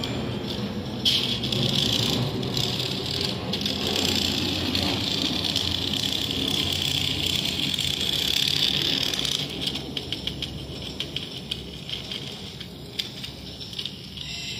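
Hulk action figure's built-in electronic sound effect, set off by pressing its light-up chest button, playing tinny and buzzy through the toy's small speaker from about a second in for some eight seconds, then fading to faint crackle.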